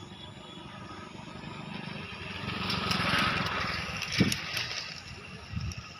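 A motor vehicle passing by on the road, its engine and tyre noise swelling to a peak about halfway through and then fading away. A short thump, the loudest instant, comes just after the peak.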